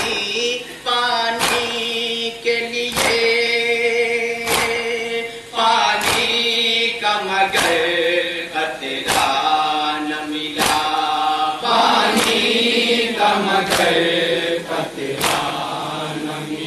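A nauha, a Shia lament, chanted by male voices: a lead reciter with mourners joining in. Sharp slaps of chest-beating (matam) by the crowd fall in unison about once every second and a half.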